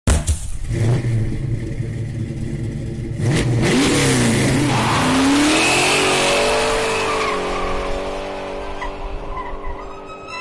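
Car engine sound effect: a steady idle, a sudden burst about three seconds in, quick rev blips up and down, then revs held high and slowly dying away.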